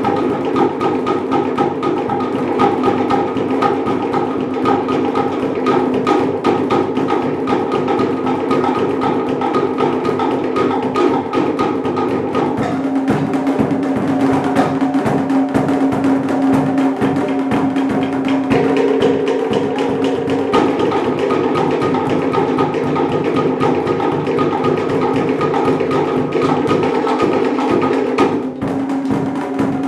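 Cook Islands drum ensemble playing a fast, dense rhythm on hollow wooden slit drums (pate) struck with sticks, giving sharp, pitched wooden knocks. The pattern shifts about 13 seconds in and again near 20 seconds.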